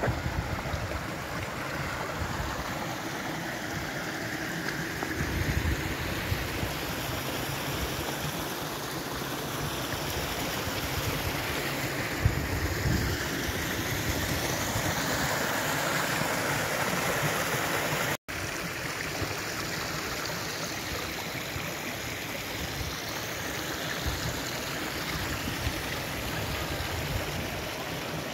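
Running water: a stream rushing steadily over rocks, a continuous even wash of sound.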